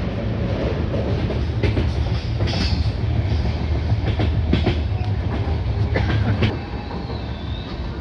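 Inside a passenger train coach running along the line: a steady low rumble with scattered knocks and clicks from the wheels and coach. The rumble eases a little about six and a half seconds in.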